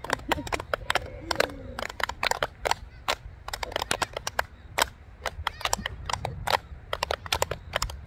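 Several people clapping their hands, sharp claps coming a few times a second in a loose rhythm.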